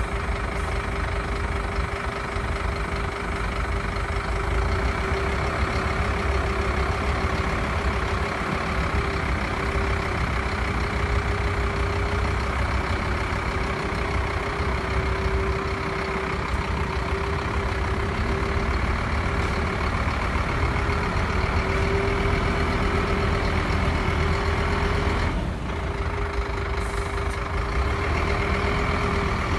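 Scania P270 truck's diesel engine running while parked, a steady rumble with a constant whine held above it.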